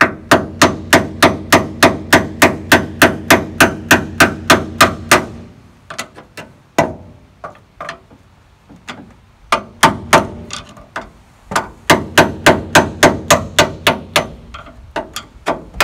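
Hammer tapping the handle of a large screwdriver wedged in the notches of a cross-cut bed-bolt washer, in fast runs of about four sharp blows a second, with a few slower blows in the middle. The blows split the rusted washer apart into pieces, freeing a stuck bed bolt.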